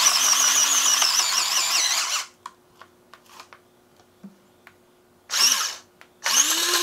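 Handheld cordless electric food chopper's small motor running with a wavering pitch for about two seconds as green onions are pushed in, then stopping. A short blip follows, then it starts again near the end, its pitch rising and then sagging. The motor has very little torque and fails to chop the onions.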